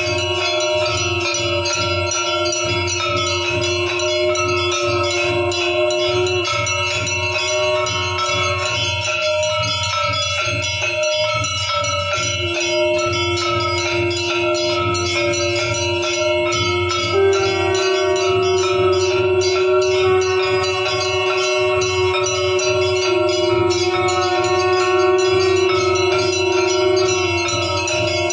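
Temple bells clanging rapidly and without a break during an aarti, over a steady held tone that drops out for a few seconds near the middle and comes back a little higher.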